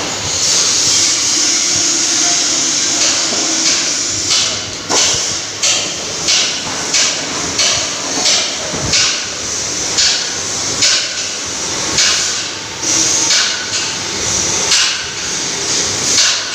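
Hammer blows, evenly spaced at about one and a half a second, starting about four seconds in, over a steady hiss.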